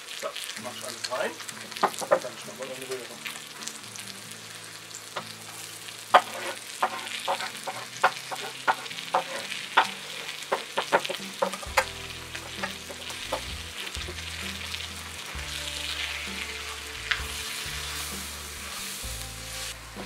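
Chicken pieces and onions sizzling in a clay tajine over a campfire, a steady frying hiss. Over it, about two sharp taps a second for the first half, a knife cutting on a wooden board.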